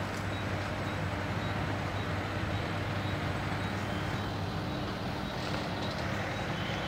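Diesel engine of an Escorts 23-ton mobile crane running at a steady hum while the crane holds and lifts its load.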